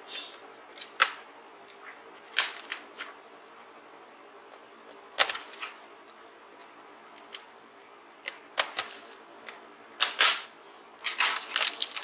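Sharp plastic clicks and snaps, single and in quick clusters, as a laptop keyboard's retaining latches are pried loose with a plastic pry tool. They come thicker toward the end as the keyboard comes free.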